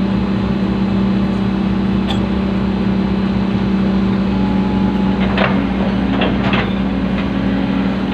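Excavator's diesel engine running steadily with a strong, even hum, with a few short clinks and knocks a little past halfway through.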